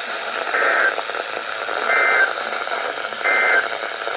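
Three short bursts of Emergency Alert System data tones, the two-pitch digital chirps of the end-of-message code that closes an AMBER Alert broadcast, each about a third of a second long, over steady radio hiss.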